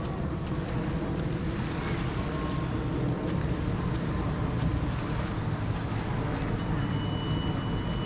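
Motorboat engine running steadily, a dense low rumble with wind and rushing water over it.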